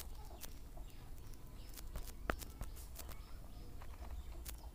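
Faint background: a low steady hum with a few scattered faint clicks.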